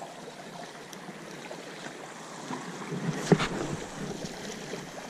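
Small sea waves washing and lapping against shore rocks, with a single sharp knock about three seconds in.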